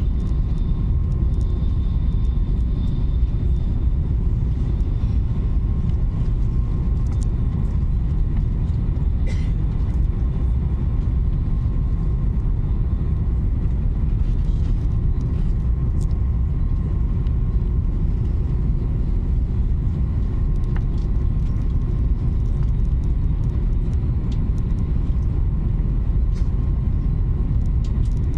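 Steady low rumble inside the passenger cabin of an Italo Alstom AGV (ETR 575) high-speed train running at speed, with a faint steady whine above it.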